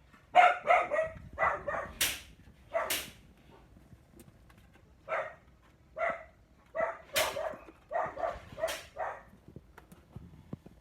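Puppy giving a string of short, high-pitched barks and yaps in quick clusters of two to four, with brief pauses between the clusters.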